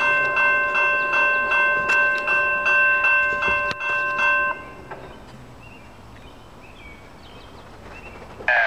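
Railroad grade-crossing warning bell ringing about twice a second while the crossing gates lower, then stopping abruptly about halfway through once the gates are down. Faint chirps follow.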